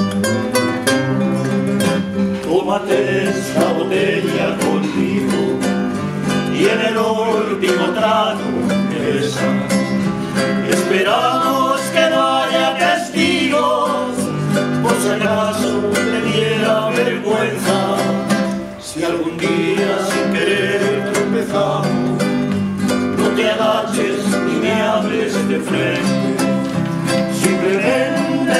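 A man singing a bolero, accompanied by a strummed classical guitar and a small guitar-like plucked instrument.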